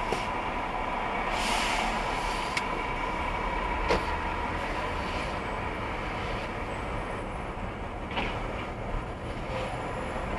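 Steady road and engine rumble of a car driving slowly in city traffic, heard from inside the car, with a faint steady tone, a couple of short hisses and a few sharp clicks.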